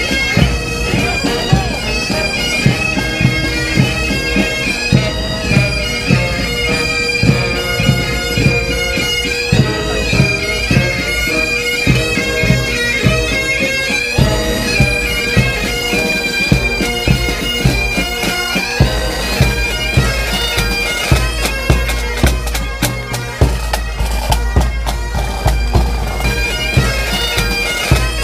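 A pipe band playing while marching: bagpipes sounding a tune over their steady drone, with a drum beat that thumps about once a second.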